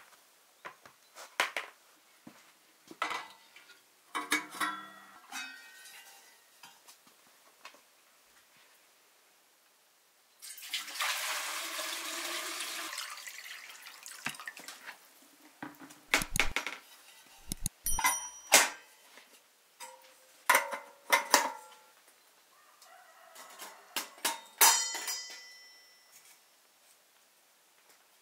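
Kitchen work sounds: scattered clinks and knocks of dishes and utensils, with a stretch of running or poured water lasting about two and a half seconds near the middle.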